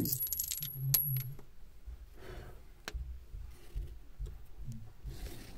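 Light metallic jingling with a thin high ring in the first second or so and a sharp click about a second in, then another click near three seconds, over low muffled handling and movement noise.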